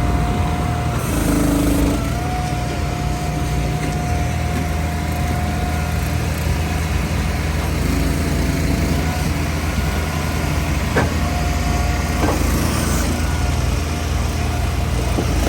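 A firewood splitter's engine running steadily at a constant speed, with a steady whine over it. There is a short hiss about a second in and a sharp knock about eleven seconds in.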